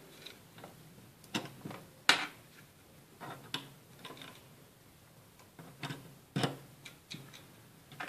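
Irregular sharp plastic clicks and small knocks as a wall charger, USB plugs and a power strip are handled and plugged in. The loudest click comes about two seconds in.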